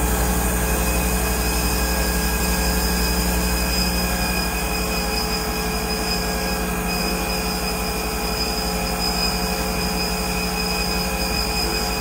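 Amada CTB400 vertical bandsaw's blade drive running at a steady speed: a steady whine of several tones over a low hum.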